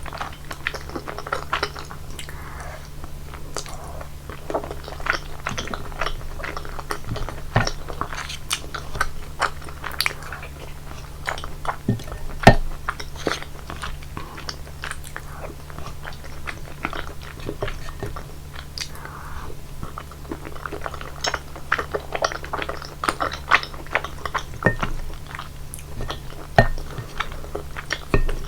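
Close-miked eating of creamy rosé tteokbokki: sticky, wet chewing with many small sharp clicks and mouth sounds, over a steady low hum. One louder sharp click comes about twelve seconds in.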